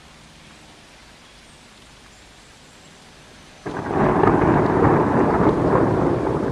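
Thunder: a clap breaks in suddenly about three and a half seconds in and rolls on as a loud crackling rumble that slowly begins to fade. Before it, only a faint steady hiss of rain.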